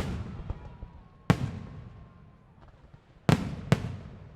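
Fireworks shells bursting: sharp bangs, each followed by a long rolling echo. One comes at the start, one a little over a second in, and two in quick succession just past three seconds.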